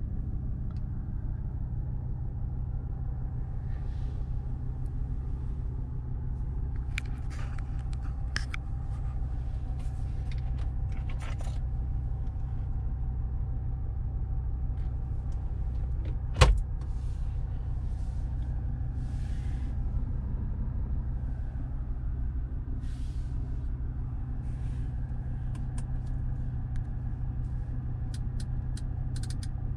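Audi RS3's turbocharged 2.5-litre five-cylinder engine idling steadily, heard from inside the cabin. Light clicks of handling come through, and about halfway through there is one sharp knock as the glovebox lid is shut.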